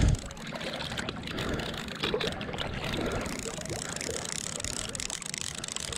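River current rushing and lapping close to the microphone, a steady swirling water noise with small splashes, opening with a brief low thump.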